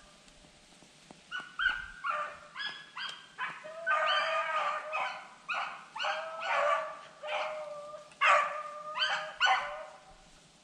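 Rabbit-hunting beagles baying on a running rabbit's track: a fast string of pitched barks, short chops mixed with a few longer drawn-out bays, starting about a second and a half in.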